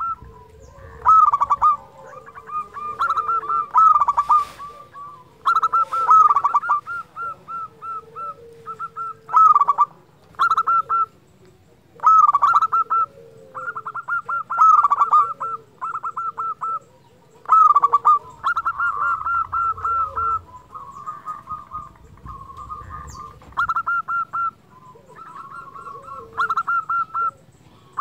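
Zebra dove (perkutut) singing its cooing song: repeated phrases of rapid staccato notes, a new phrase every second or two.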